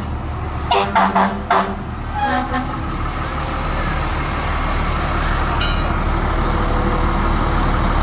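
A few short horn blasts from a parade truck in the first two and a half seconds, then the steady low rumble of heavy trucks' engines running past.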